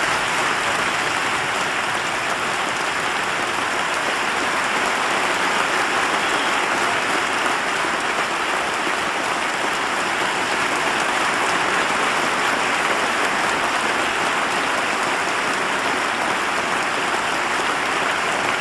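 Large audience applauding: dense, steady clapping with no break.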